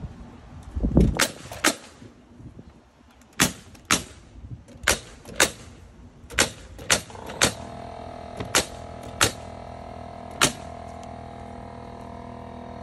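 Pneumatic coil nailer firing nails through wooden fence pickets into the rails: about a dozen sharp shots, mostly in pairs about half a second apart.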